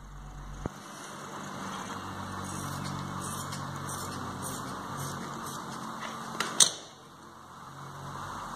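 Large tailor's scissors cutting through black velvet: a run of short snips and blade clicks, with one sharper click about six and a half seconds in, over steady background noise.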